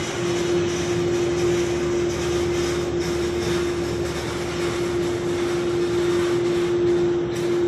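Steady jet aircraft noise at an airport: a constant, unchanging drone over an even rushing background.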